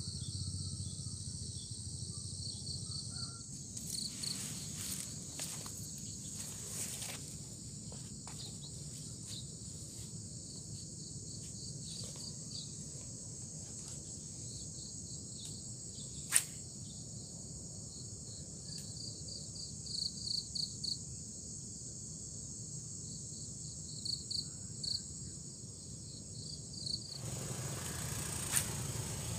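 Insects chirping steadily, a constant high trill with short pulsed chirps repeating over it, and a single sharp click a little past halfway.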